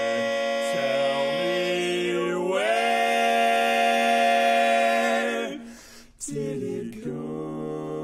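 Male barbershop quartet singing a cappella in four-part harmony: a held chord that moves up into a louder sustained chord, fades out about five and a half seconds in, and after a short gap a new, softer chord begins.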